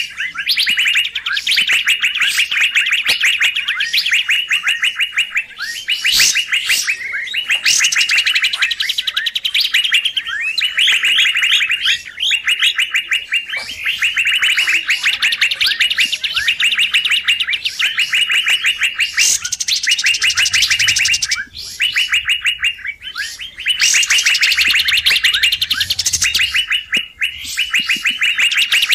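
Recorded lure calls of the kapas tembak bulbul: a loud, fast chattering of rapidly repeated notes in bouts, with short gaps between them. Higher gliding whistled notes come in a few times, around the middle and again later.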